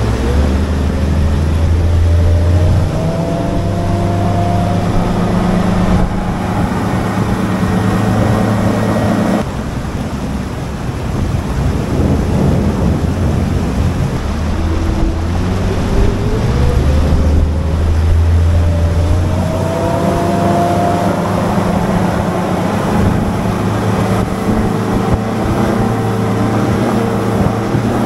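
Bass boat outboard motor running underway, rising in pitch as it throttles up near the start and again partway through, with rushing wind and water noise over the hull.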